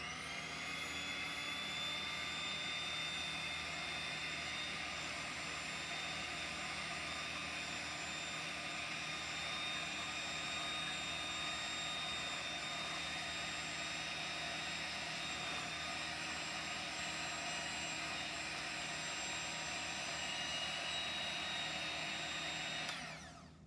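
Electric hand mixer switched on, its beaters running steadily in a cup of paint with a high motor whine, then spinning down just before the end.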